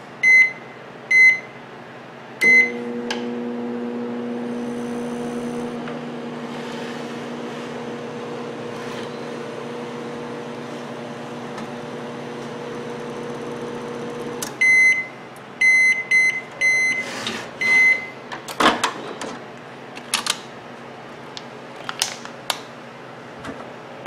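Cetron microwave oven, casing off, keyed in with three short beeps, then running for about twelve seconds with a steady electrical hum. The hum stops and a string of end-of-cycle beeps sounds, followed by a few sharp knocks. The oven is heating again with its magnetron replaced.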